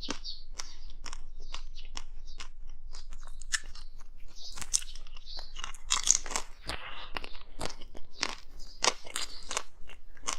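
Close-miked crunching as someone bites and chews hard frozen ice, with rapid, irregular sharp cracks.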